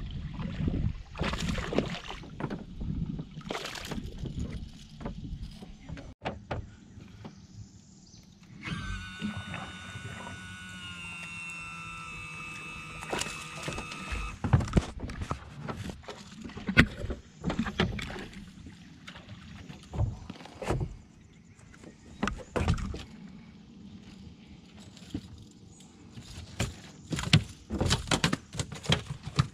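Knocks and clatter on an aluminum jon boat while a hooked bass is brought to the boat and splashes beside it. A steady whine runs for about six seconds in the middle.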